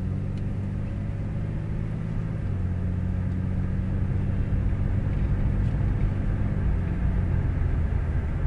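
A motor vehicle's engine running steadily with a low rumble as it moves slowly; its pitch shifts slightly about two and a half seconds in.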